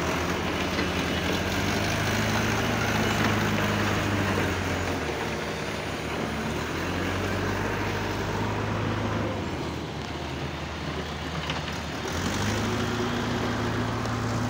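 Concrete batching plant and concrete pump machinery running: a steady, loud mechanical hum that drops somewhat in the middle and comes back stronger about twelve seconds in.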